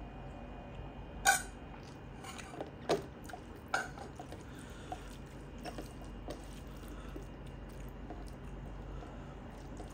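Dal poured from a steel ladle onto a steel thali plate, with a few sharp clinks of metal on metal in the first few seconds, the first the loudest. Then soft, wet squishing as a hand mixes rice with the dal.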